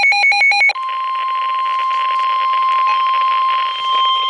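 Weather alert radios going off for a flash flood warning: rapid electronic beeping for under a second, then the steady 1050 Hz NOAA Weather Radio warning alarm tone over radio static. A second, higher steady tone joins about three seconds in.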